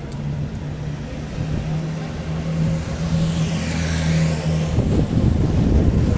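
City street traffic: a steady low engine drone that stops a little before the end, and a vehicle passing close by about four seconds in, followed by louder traffic rumble.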